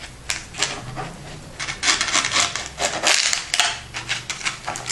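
A knife sawing through a baked vegetable tortilla resting on baking paper, with rough scraping and paper crackling, denser and louder from about a second and a half in.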